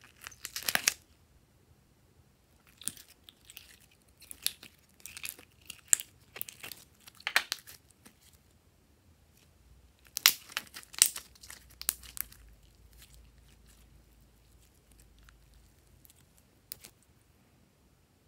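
Gold glitter slime squeezed and kneaded by hand, giving off sticky crackles and small pops in irregular bursts. The loudest cluster comes about ten seconds in, with a single crackle near the end.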